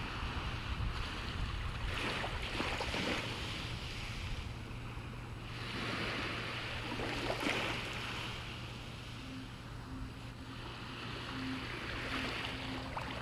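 Wind gusting over the microphone in slow, surf-like swells, with a soft ambient music track from a portable JBL Bluetooth speaker underneath: a steady low drone, and a faint held note that comes in about two-thirds of the way through.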